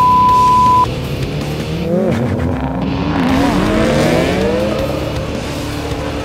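Race-start signal beeping once with a long, high steady tone as the light turns green. About two seconds later several race car engines rev up and pull away, their pitches rising and bending, with some tyre squeal.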